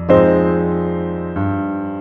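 Background music: soft piano chords, one struck just after the start and another about a second and a half in, each left to ring and fade.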